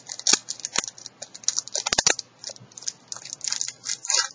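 Foil wrapper of a Magic 2012 booster pack crinkling in the hands as the pack is opened: a dense, irregular run of sharp crackles.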